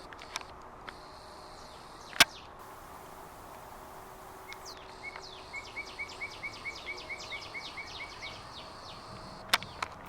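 Birds singing: a quick run of repeated down-slurred high notes, about three a second, for some four seconds in the second half. A sharp click about two seconds in, and another near the end.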